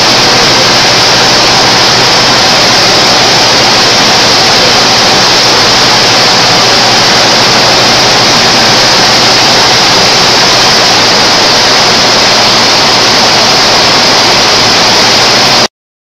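A loud, steady rushing noise like a hiss, unchanging throughout, that cuts off suddenly near the end.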